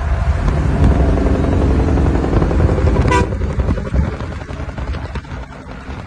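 Diesel big rig's engine (Jake) brake blatting: a loud, buzzy pitched note over a heavy rumble. It cuts off about three seconds in with a brief high chirp, leaving a lower road rumble.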